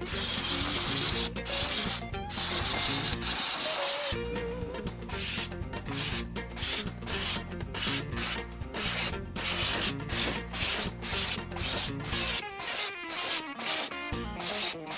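Gravity-feed compressed-air spray gun spraying rust-preventative coating in on-off bursts as the trigger is pulled and released. There are a few longer passes at first, then from about midway short bursts come at roughly one to two a second. Background music plays underneath.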